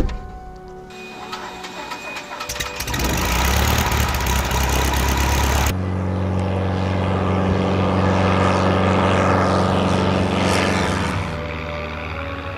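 A sharp click, then a light single-engine propeller plane's engine building up to full power with a heavy rushing noise. After a sudden cut, the engine drones steadily as the plane climbs away, growing fainter near the end.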